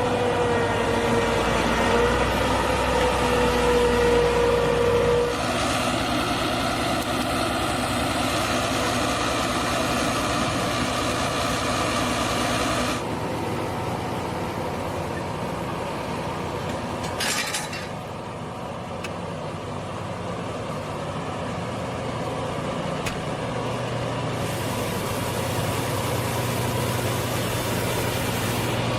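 Combine harvester engine running steadily, its sound shifting a few times. A steady whine runs over it for the first five seconds, and there is a short hiss about seventeen seconds in.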